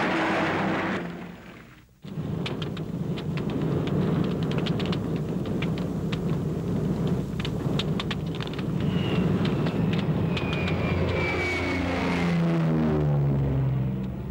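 Film sound of a P-38's crash landing: a loud rushing roar that cuts away about two seconds in, then a low rumble with many sharp crackling pops, and near the end a whine falling in pitch.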